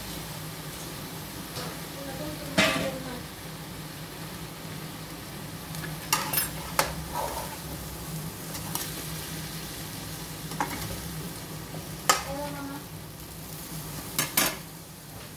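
Chicken and vegetables sizzling in a stainless steel pan, with a spatula knocking and scraping against the pan several times as the broccoli, cauliflower and carrots are stirred in. A steady low hum runs underneath.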